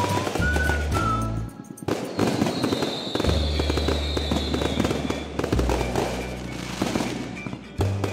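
Aerial fireworks bursting and crackling, with one long high whistle that falls slightly in pitch from about two seconds in. Music with a steady bass line plays underneath.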